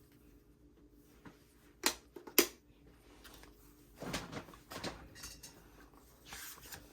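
Album photobook being handled and its pages turned: two sharp taps about two seconds in, then softer paper rustles.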